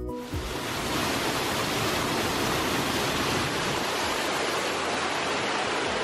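Waterfall and rocky stream rushing with a steady, even roar of water; a little music cuts off right at the start.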